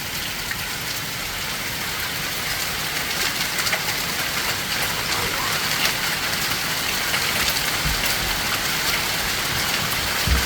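Hail coming down hard: a dense, steady patter of hailstones striking surfaces, full of sharp clicks, growing a little louder about three seconds in. A couple of low thumps come near the end.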